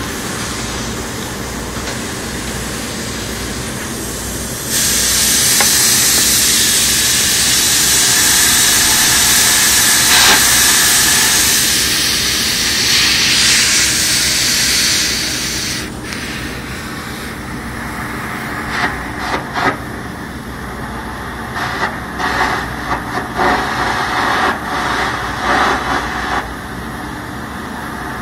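Welding work on heavy steel machinery over a steady machine drone. A loud, even hiss starts suddenly about five seconds in and cuts off abruptly a little past halfway, then irregular crackling bursts follow.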